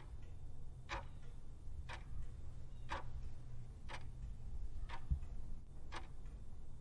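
Clock-ticking sound effect, one sharp tick each second, marking the seconds of an answer countdown timer.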